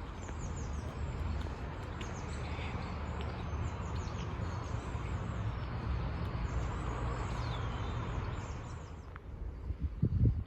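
Songbirds singing repeated short, falling chirps over a steady rush of flowing river water, with a low rumble beneath. A few loud low thumps near the end.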